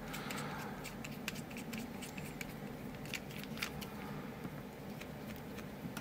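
Precision screwdriver backing out the small steel screw that retains the plug of a brass padlock: faint, irregular little clicks and scrapes of the bit and screw.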